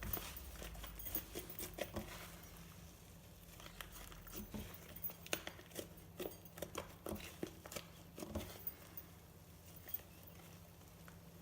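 Glossy slime being squished and stretched by hand, giving irregular small clicks and pops.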